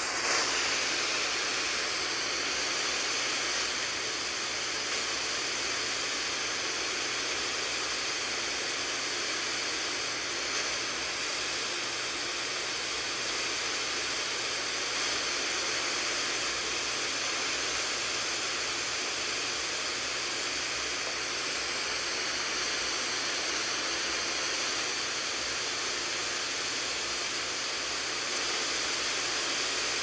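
Steady static hiss from a Sangean weather radio's speaker, with no voice coming through: the weather station's signal is too weak to be received cleanly.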